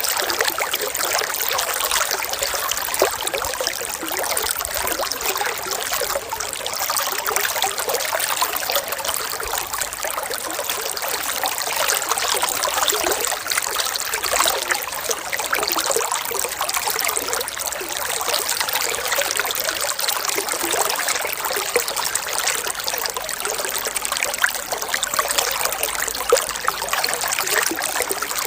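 Running water trickling and splashing steadily, with many small splashes and no let-up.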